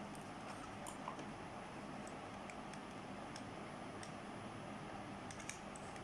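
Faint scattered clicks and light rustles of stiff rolled-newspaper pieces being handled and pressed together, over a steady hiss.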